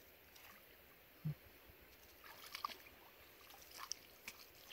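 Near silence, broken by a few faint short clicks and a soft low bump about a second in.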